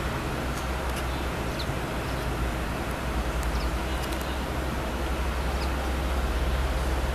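Steady outdoor background noise: a low, uneven rumble with a general hiss and a few faint high chirps.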